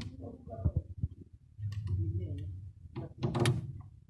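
Knife scraping and cutting round the insulation sleeve of a heavy underground power cable, with handling knocks and a louder rasping scrape about three seconds in.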